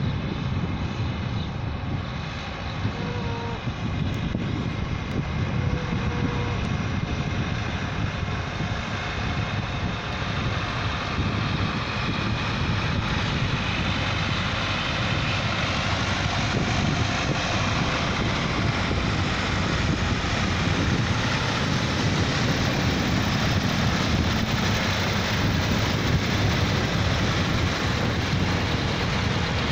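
Steady drone of vintage tractor engines as a convoy of tractors approaches along the road, growing a little louder about halfway through.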